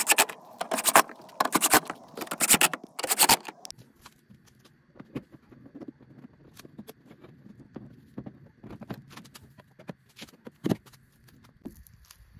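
A quick run of sharp metallic clicks and clacks for the first few seconds, then quieter scattered ticks and handling noise.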